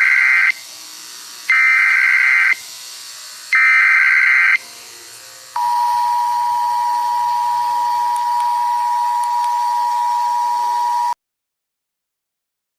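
Emergency alert broadcast signal: three one-second bursts of harsh warbling data tones (the alert header), a second apart, then a long steady single-pitch attention tone. The attention tone cuts off suddenly after about five seconds.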